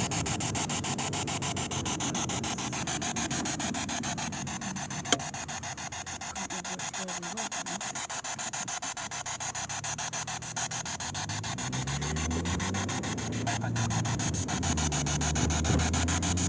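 Rubbing and scraping handling noise from the camera held against clothing and hands, with a single sharp click about five seconds in. In the second half, a car engine rises in pitch as the car picks up speed.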